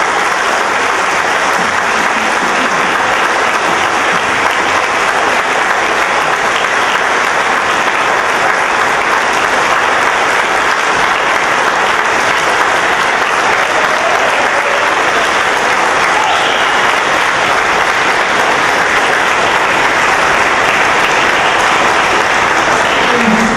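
Large audience applauding steadily for over twenty seconds.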